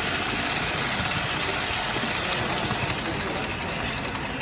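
Model diesel multiple unit train running along the layout's track close by: a steady running noise from its motor and wheels on the rails.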